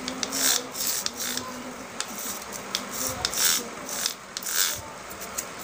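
Sandpaper rasping against a Bosch angle grinder's armature in about five short strokes, roughly once a second, while the armature is turned by hand, scrubbing off the black carbon deposit.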